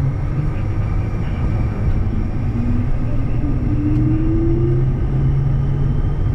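Bombardier Challenger 350's Honeywell HTF7350 turbofans and rolling wheels, heard from inside the cockpit as a steady loud rumble while the jet accelerates down the runway on its takeoff roll. Partway through, a tone rises in pitch.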